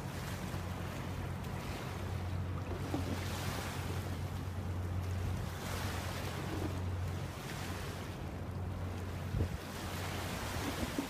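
River Thames water washing and splashing in rising and falling swells, with wind on the microphone. Under it runs a steady low hum that drops away about seven seconds in.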